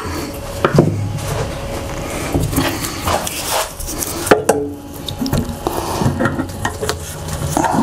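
Gloved hands working inside the filler opening of a metal motorcycle fuel tank, making irregular clicks, knocks and rattles as old fuel-line parts are worked loose, with two sharper knocks about a second in and just past four seconds.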